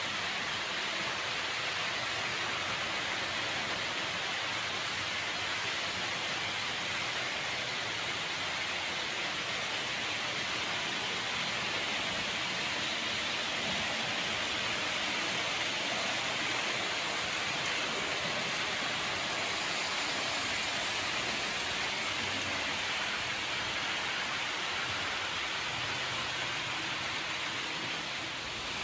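HO-scale model trains running on the layout: a steady rushing hiss of wheels and small motors on the track, with several trains moving at once.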